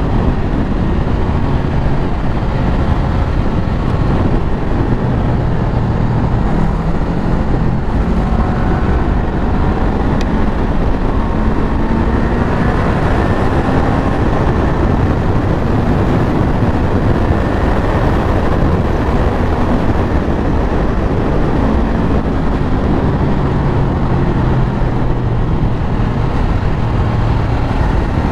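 Honda CBR500R's parallel-twin engine running on the move, its revs rising and falling several times, under heavy wind noise on the microphone.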